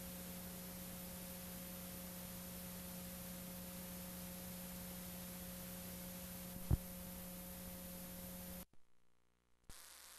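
Steady electrical hum and hiss on an otherwise empty soundtrack, with a single sharp click about two-thirds of the way in. Near the end the hum cuts out for about a second, then a fainter hiss returns after a small click.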